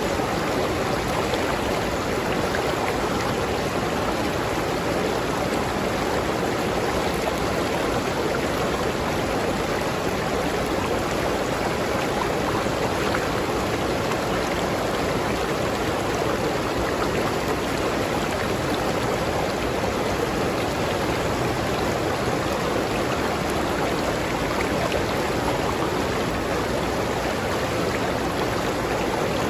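Steady rush of a flowing river stream, an even, continuous wash of water.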